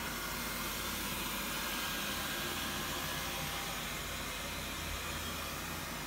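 Xiaomi Mi robot vacuum cleaner running: a steady hiss from its suction fan, with a low hum beneath.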